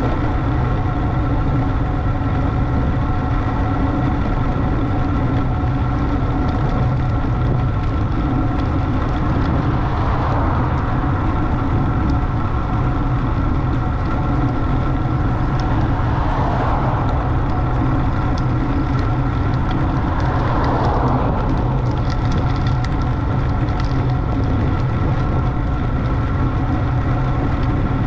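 Steady, loud wind rush with a low rumble over the microphone of a road bike on the move, with a few brief swells in the noise.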